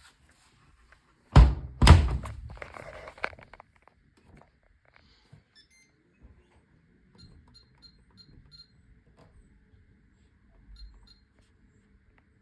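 Beko BM3WT3741W washing machine: two heavy thunks about half a second apart with a short rattle dying away, then a run of about six short high beeps from the control panel and two more near the end, over a faint low hum.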